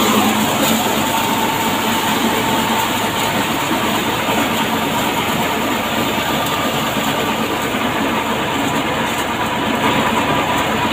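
Small maize thresher running steadily while shelling corn cobs: a loud, even mechanical din with a faint steady whine through it.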